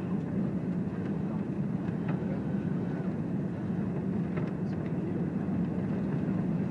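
Airbus A380 on approach heard from inside the passenger cabin: a steady, deep rumble of engine and airflow noise that keeps an even level.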